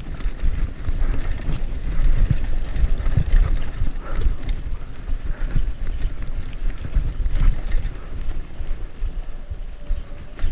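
Mountain bike riding fast down a rough, dry dirt trail: wind buffeting the action camera's microphone over a steady tyre rumble, with frequent rattles and knocks from the bike as it goes over bumps.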